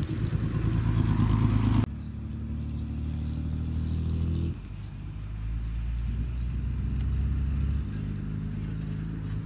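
An engine running steadily with a low hum. The hum changes abruptly about two seconds in and again about halfway through. Faint bird chirps can be heard above it.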